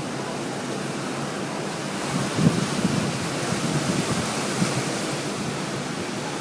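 Steady rushing of strong storm wind, partly wind buffeting the microphone.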